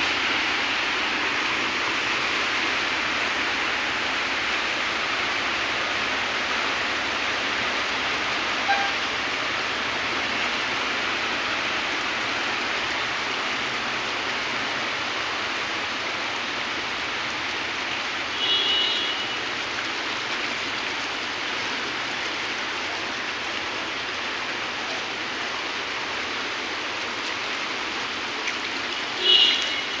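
Steady, even hiss of heavy rain and rushing floodwater on a flooded street. Two short high tones sound, one about halfway through and one near the end.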